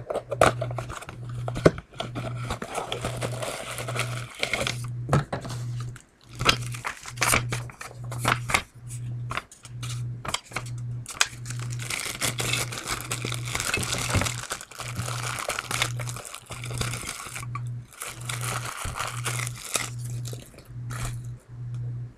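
Packaging being unpacked by hand: paper and plastic crinkling and rustling in stretches, with many sharp clicks and knocks as the metal and glass parts of a bubbler pipe are taken out and handled. A low hum pulses on and off about once a second underneath.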